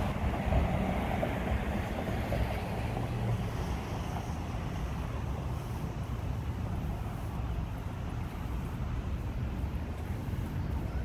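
Road traffic on a wet street: tyre hiss from a passing car, strongest in the first few seconds and then easing off, over a steady low rumble of wind on the microphone.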